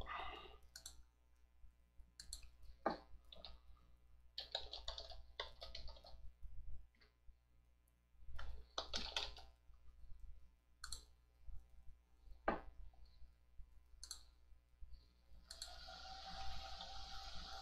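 Computer mouse clicks and keyboard typing: scattered single clicks with short flurries of keystrokes. A steady hiss starts about three-quarters of the way through.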